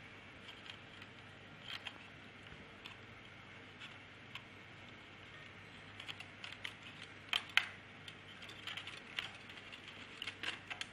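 Light clicks and taps of small projector parts being handled during disassembly. A few scattered clicks at first, then denser runs of clicking in the second half, the loudest a little past the middle.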